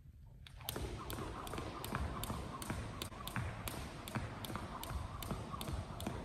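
Jump rope skipping: the thin rope slaps the hardwood gym floor in a steady rhythm of about three sharp clicks a second, with sneakers landing on each hop. It starts about half a second in.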